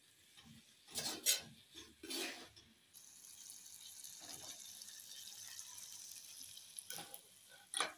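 Capsicum and raw mango pieces frying in sesame oil in a clay pot over a wood fire. A metal spatula scrapes through them about one and two seconds in, then a steady soft sizzle, with two sharp knocks near the end.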